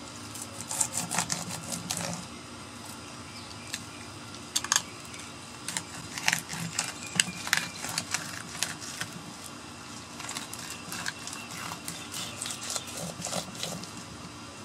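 Fillet knife cutting through an unscaled yellowtail snapper on a wooden board: irregular bursts of crisp scraping and crackling clicks as the blade works through the scales and flesh near the head, with short quiet pauses between the strokes.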